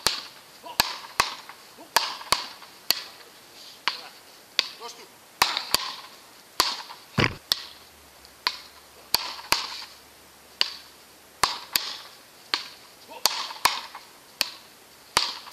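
Ball struck back and forth with solid paddle rackets in a rally, a run of sharp clacks at about one and a half a second, with one duller thump about seven seconds in.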